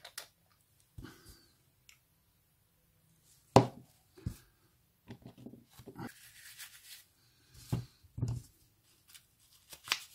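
Hand tools and small metal parts being picked up and set down on a workbench: scattered taps and clicks, the sharpest about three and a half seconds in, with some soft rubbing about six seconds in.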